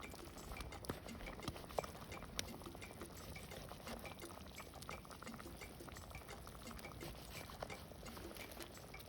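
Faint crackling and ticking over a low steady hiss from a pot of chili heating over campfire coals.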